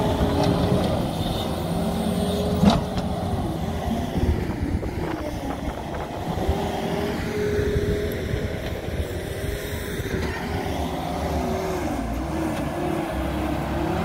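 Case TV450 compact track loader's diesel engine running steadily as the machine pushes dirt. Its pitch dips and recovers several times. A single sharp knock comes about two and a half seconds in.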